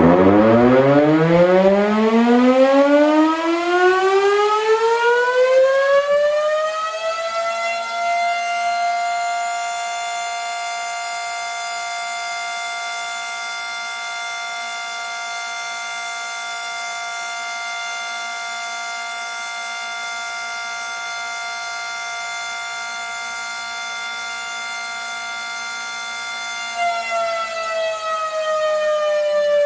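Civil defense siren winding up: its wail rises from a low pitch over about eight seconds, holds one steady tone for nearly twenty seconds, then starts to wind down near the end.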